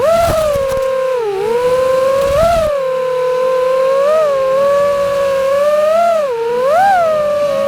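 FPV freestyle quadcopter's motors whining, the pitch rising and dipping repeatedly with the throttle. Brief rushes of wind noise come at the very start and again about two and a half seconds in.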